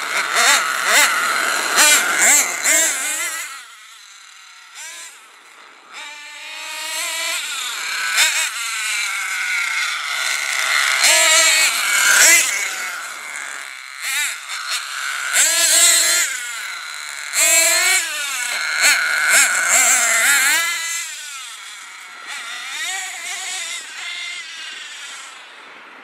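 Hot Bodies GTX2 radio-controlled truck's dual .26 nitro engines being driven, revving up and easing off again and again with rising and falling high-pitched sweeps. It drops back for a couple of seconds about four seconds in and fades near the end as the truck runs far off.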